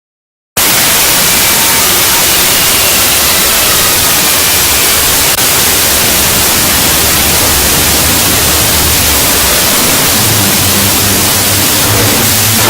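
Loud static hiss like white noise that cuts in suddenly about half a second in and holds steady, with a faint low drone rising underneath near the end.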